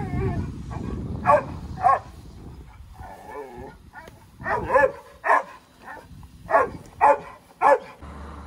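A dog barking, about seven short sharp barks in spaced bursts, some in quick pairs.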